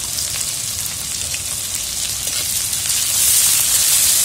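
Sliced small red onions (shallots) sizzling in hot coconut oil in a wide aluminium pan, a steady hiss with faint crackles that grows louder about three seconds in.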